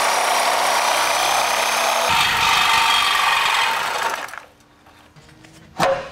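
Reciprocating saw (Sawzall) cutting through the truck's steel rear crossmember. It runs steadily, then stops about four seconds in, and a single sharp knock follows near the end.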